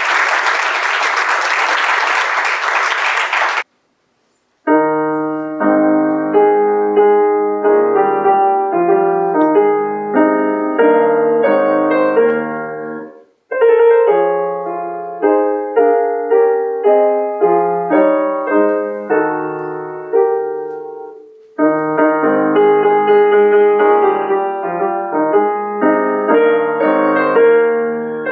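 Audience applause that cuts off suddenly after a few seconds. After a second of silence, a solo grand piano starts playing, in phrases with two short pauses.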